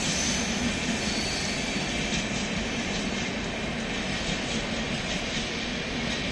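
Passenger coaches of the Rajdhani Express rolling along the track, a steady running noise of wheels on rail with faint light clicks from about two seconds in.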